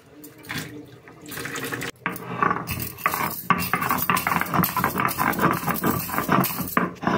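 Stone roller of a sil-batta rubbed back and forth on the flat grinding stone, crushing dry whole spices into garam masala: a fast, continuous run of rough scraping strokes that starts about three seconds in.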